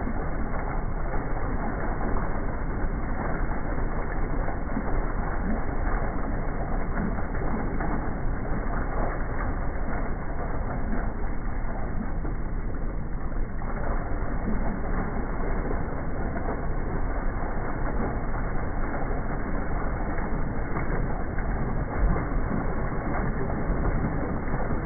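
Bell Mario rimless one-piece ceramic toilet flushing: a steady rush of water swirling and draining through the bowl.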